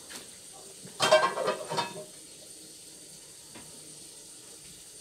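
A person's short, loud cry lasting about a second, beginning about a second in, then a steady faint hiss.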